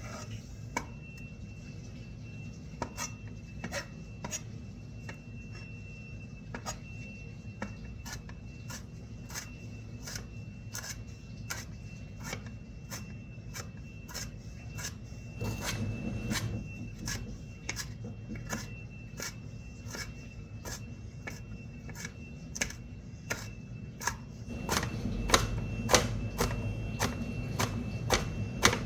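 Kitchen knife chopping red pepper on a cutting board: sharp taps of the blade hitting the board, about one or two a second, coming faster near the end. A faint steady high whine and a low hum run underneath.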